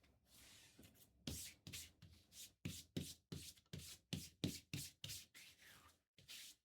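Trading cards slid one after another through the hands: a faint series of about a dozen quick swishes, roughly three a second, that stops about five seconds in.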